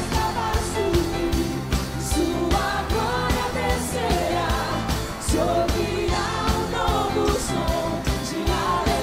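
Live worship band playing: a woman sings lead into a microphone over drums, bass and keyboards, with a steady beat and cymbal crashes.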